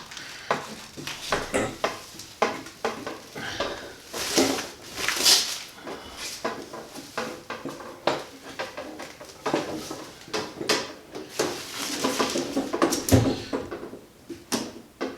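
Packaging being handled: irregular crinkling and rustling with small knocks and clatters throughout, a louder knock about thirteen seconds in.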